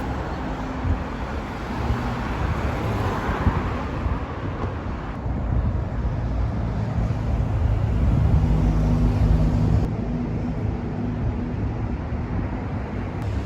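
A car driving: steady engine and road rumble, heaviest in the low end, slightly louder from about eight to ten seconds in.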